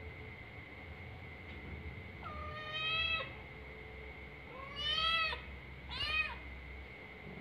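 Domestic cat meowing three times at a door, asking to be let into the room. The first meow lasts about a second, and the last is the shortest; each rises and then falls in pitch.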